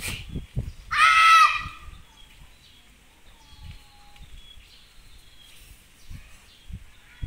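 A girl karateka's kiai: one sharp, loud shout lasting under a second, about a second in, as she performs her kata. Birds chirp faintly throughout, and there are soft low thumps.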